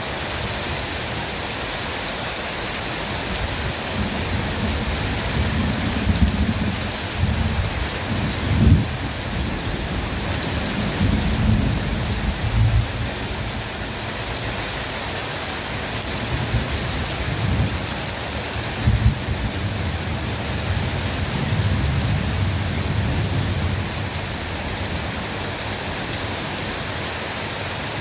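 Steady rain falling on the forest, a continuous hiss, with low rolling rumbles of thunder that swell and fade, loudest about nine seconds in and again near nineteen seconds.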